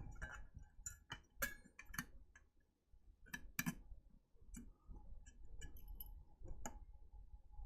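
Faint, irregular clicks and taps of a circuit board and small plastic case parts being handled as the board of a JC PRO1000S programmer is worked back down into its case.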